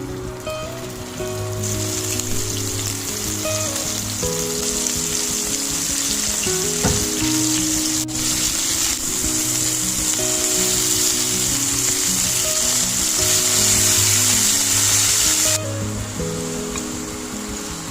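Food sizzling as it fries in hot oil, starting about two seconds in and cutting off suddenly near the end, over background music.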